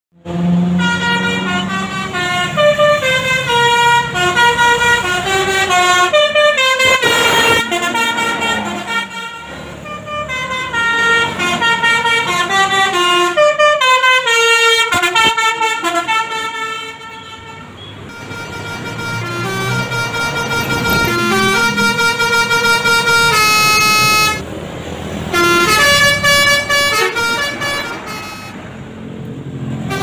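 Telolet Basuri V3 musical bus horns playing quick melodic runs of stepping notes, one tune after another, over the sound of passing bus traffic. The horn briefly stops about three-quarters of the way through, then starts again.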